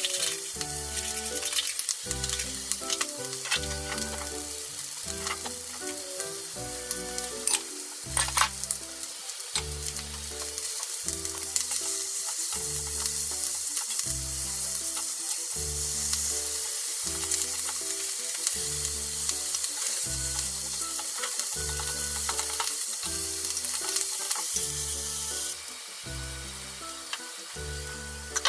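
Leafy greens sizzling in oil as they are stir-fried in a small rectangular omelette pan, with a few sharp utensil clicks about 8 seconds in. The sizzling drops away about 25 seconds in. Background music with a steady beat plays under it.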